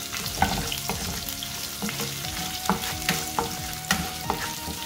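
Curry leaves, cumin, fennel and fenugreek seeds and dried red chillies sizzling and crackling in hot sesame oil, stirred with a wooden spatula in a non-stick pan. Scattered sharp pops and spatula clicks sound over the steady frying hiss.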